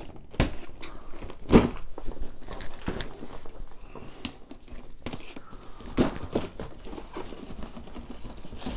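A cardboard gift box being opened by hand: tape pulled off its side and the packaging rustling and crinkling, with a few sharp taps and knocks scattered through.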